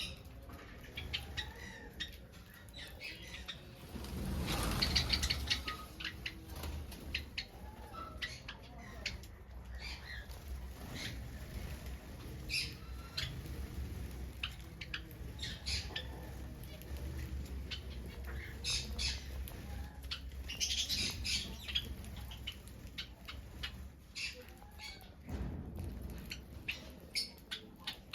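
Small finches calling in many short, scattered chirps and squawks over a low steady hum, with a longer rustling burst about four seconds in and another near the end.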